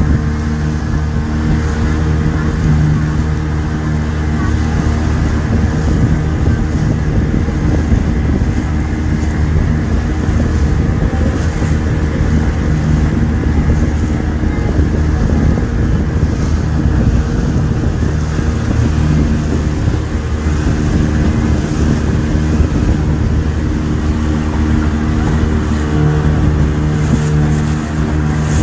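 Speedboat engine running steadily at speed, with the rush of water along the hull.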